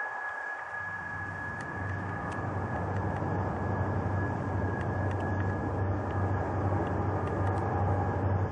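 Distant BNSF freight train's diesel locomotives working under power as the train gains speed: a steady low engine drone comes in about a second in and grows slightly louder, over a constant high thin whine.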